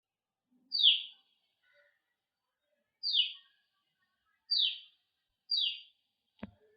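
A sparrow chirping: four single, separate cheeps, each a quick downward sweep, spaced one to two seconds apart. A short click follows near the end.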